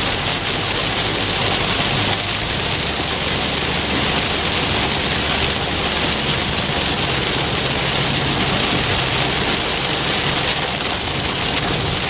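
Heavy thunderstorm downpour: loud, steady hiss of rain pouring down and drumming on nearby surfaces, with no break in it.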